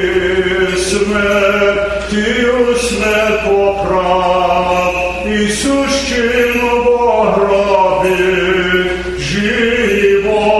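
Male voices singing Orthodox church chant, slow and in unison, each note held long before the melody steps to the next.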